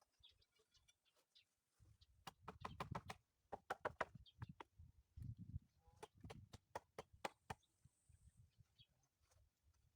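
A run of irregular sharp knocks and taps with dull thuds underneath, starting about two seconds in and dying away a couple of seconds before the end.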